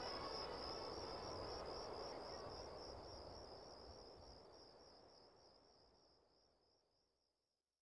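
Crickets chirping in a steady, evenly pulsing high trill over a soft evening hum, fading out to silence near the end.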